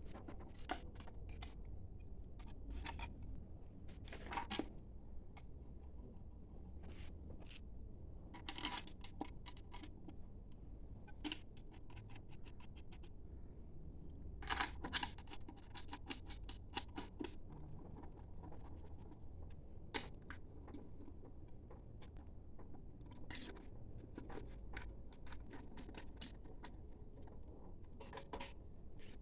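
Scattered light metallic clicks, clinks and scrapes of tools and engine parts being handled during engine repair work. A quick run of sharper clinks comes about halfway through.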